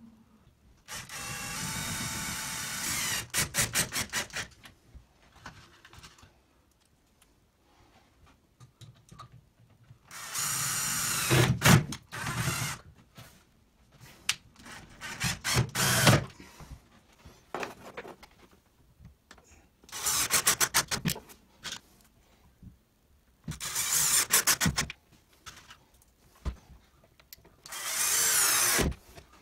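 Compact Bosch cordless drill-driver driving screws through metal brackets, in about six short runs of a steady whine, each ending in a quick rattle of clicks as the screw goes home.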